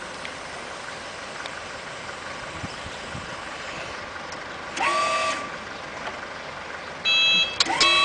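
Electric forklift's reversing alarm beeping over a steady hiss. A short beep comes about five seconds in, then louder repeated beeps from about seven seconds, the signal that the truck is in reverse.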